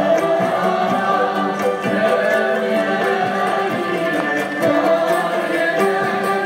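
A traditional string ensemble of ouds, mandolins, guitars and violins playing, with a group of voices singing along.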